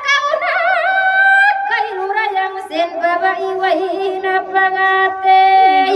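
A woman singing long held notes with a wavering vibrato, with a second, lower part holding notes beneath her voice.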